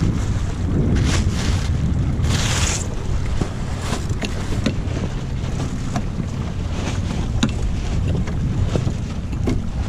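Wind buffeting the microphone aboard a small wooden sailboat, a steady low rumble with water sloshing on the hull. A brief hissing rush comes about two and a half seconds in, and scattered small clicks follow.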